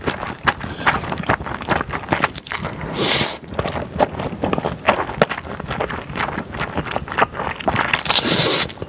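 Close-miked eating: thick glass noodles slurped into the mouth and chewed, with quick wet smacking clicks throughout and two longer slurps, one about three seconds in and one near the end.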